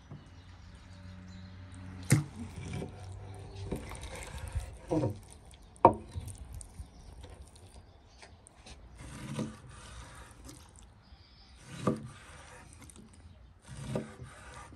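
Large kitchen knife slicing raw beef liver on a wooden cutting board: soft, wet cutting sounds, with a sharp knock against the board several times as the blade goes through.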